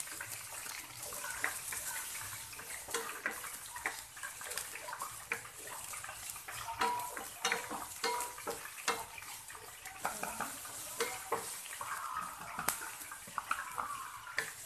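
Chopped red onion sizzling in hot oil with ginger in a stainless steel frying pan, stirred with a wooden spatula that taps and scrapes against the pan in quick, irregular strokes.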